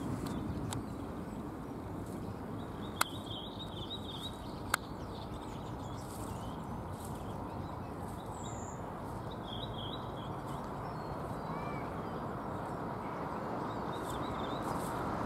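Faint, short bird chirps a few times over steady background noise, with two sharp clicks about three and about five seconds in.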